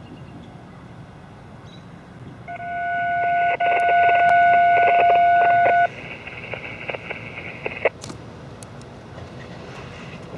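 Locomotive air horn sounding a chord of several tones from an approaching train: a short blast, a brief break, then a longer blast. Its higher tones trail on for about two seconds more before cutting off.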